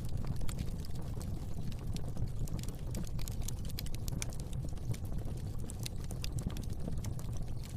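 Fire burning in a fireplace: a steady low rumble of flames with frequent small crackles and pops.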